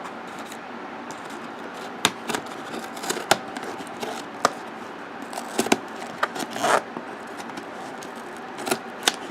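Cardboard subscription box being opened and its packaging handled: irregular sharp clicks, snips and short scrapes, over a steady hiss.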